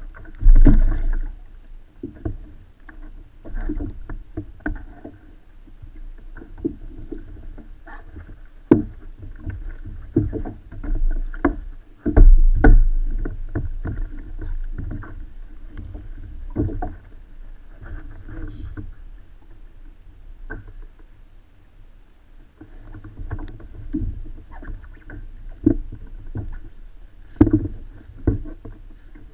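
Handling noises aboard a fishing kayak: irregular knocks and bumps against the hull as a freshly caught striped bass is held and handled, with two heavier thumps about a second in and about twelve seconds in.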